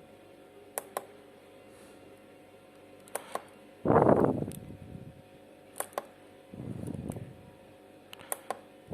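Pairs of sharp clicks, roughly every two and a half seconds, with short bursts of rustling noise in between; the loudest burst comes about four seconds in.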